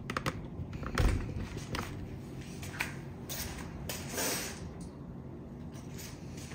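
A few light knocks and a short rustle over a steady low room hum.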